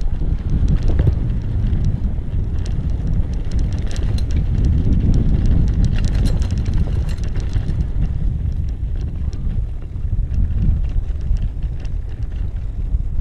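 E-bike rolling over a dirt trail on Schwalbe Marathon Plus road tyres: wind buffets the microphone with a heavy low rumble, over scattered clicks and rattles from the bike and the ground.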